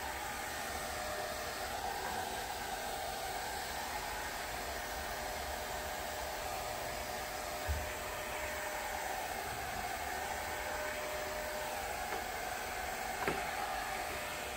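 Handheld hair dryer running steadily on its low setting: an even blowing rush with a steady hum. Two faint taps sound over it, one about halfway and one near the end.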